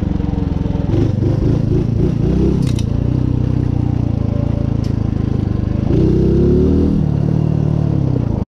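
Mutt motorcycle's single-cylinder engine pulling along a rough dirt trail, revs rising and falling with the throttle and climbing briefly about six seconds in. Two short sharp clacks come through over the engine.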